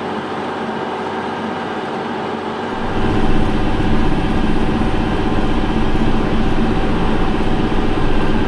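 Heavy farm machinery's diesel engine running under load with a steady drone, growing louder with a deeper rumble about three seconds in.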